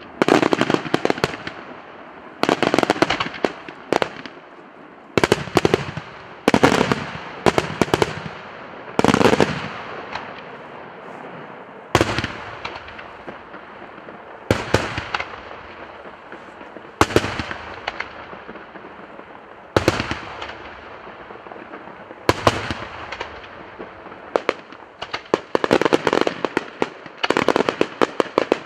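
Daytime aerial fireworks display: clusters of sharp bangs from bursting shells, each trailing off, coming every two or three seconds and quickening into rapid volleys near the end.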